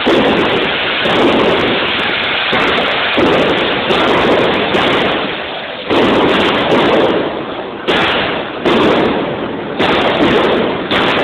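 Fireworks going off at a burning falla: a loud, dense, continuous crackling rumble, with sudden louder bursts several times in the second half.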